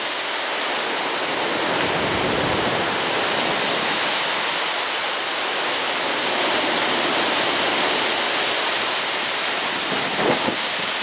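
Wind roaring steadily: an even rushing noise with no break.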